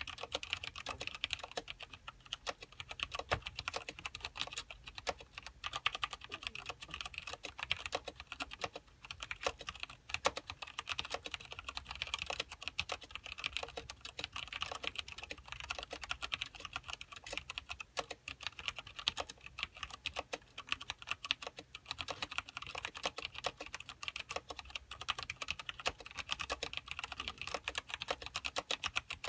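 Continuous fast typing on a mechanical keyboard with Cherry MX Black linear switches and thin ABS keycaps: a dense, irregular stream of key clacks that stops abruptly at the end.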